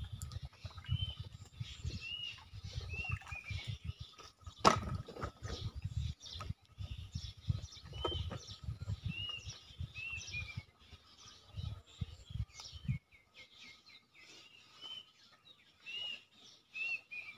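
A bird calling over and over, short chirps that rise and fall, about one a second, over a low rumble that stops about thirteen seconds in. A single sharp knock about five seconds in is the loudest sound.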